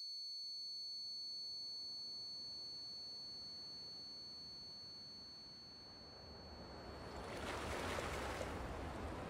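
A steady high-pitched ringing tone, the ear-ringing effect left after a nearby blast, fades slowly under a faint growing hiss. About seven seconds in the tone cuts off and sea surf washing against rocks swells in loudly.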